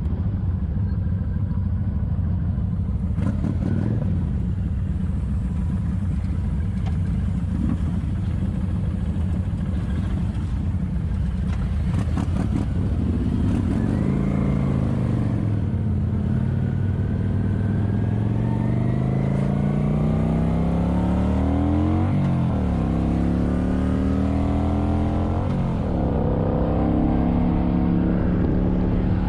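Kawasaki Vulcan 900's V-twin engine running steadily, then revving up about halfway through as the bike accelerates, with two quick drops in pitch near the end as it shifts up through the gears.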